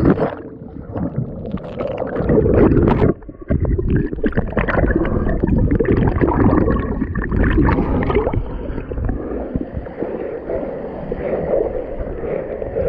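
A splash into a swimming pool at the start, then muffled bubbling and churning water heard through a submerged action camera.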